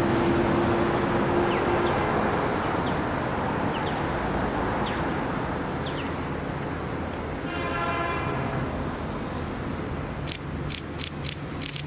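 Locomotive horn of an approaching train, one blast of about a second roughly two-thirds of the way in, over a steady background hum. A few sharp clicks follow near the end.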